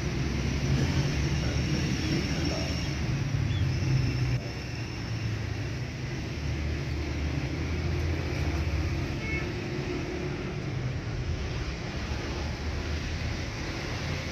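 Steady low engine rumble with a background hiss; the rumble eases and settles lower about four seconds in.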